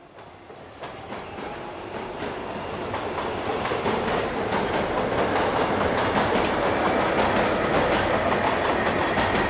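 Passenger train passing close by, its wheels clattering over the rail joints. It fades in and grows louder over the first few seconds, then runs steadily, with a faint high whine near the end.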